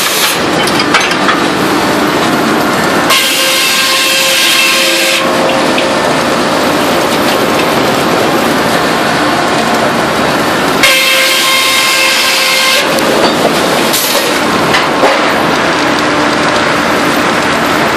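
Sawmill saw running and cutting through timber: a loud, steady noise. Twice, for about two seconds each (around three seconds in and again around eleven seconds in), a high ringing whine from the blade comes through.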